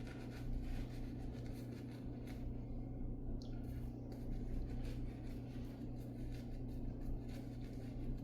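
Light, scratchy strokes of an Antica Barberia Titan safety razor scraping across lathered stubble, touching up a few remaining spots, over a steady low hum.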